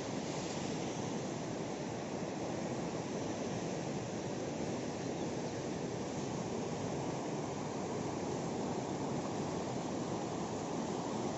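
The Suru River rushing steadily, a dense, even wash of turbulent water in fast, heavy flow.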